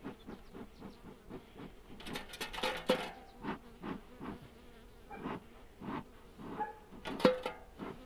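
Honeybees buzzing close around an opened hive, stirred up and unhappy after the inspection. A short hiss comes about two seconds in and a sharp knock near the end.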